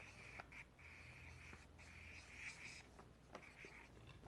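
Faint scratching of handwriting strokes as a syllable is written out in cursive, coming in short runs with brief pauses between them.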